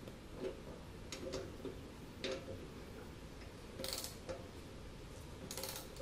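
Ratchet wrench clicking faintly as a nut on the Ferguson TO-20's water pump housing is tightened: scattered single clicks, with two short rattling bursts about four and five and a half seconds in.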